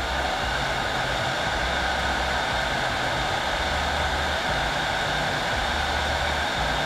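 Heat gun blowing hot air steadily, a constant rush, heating a plastic tube to soften it so it can be bent and fitted.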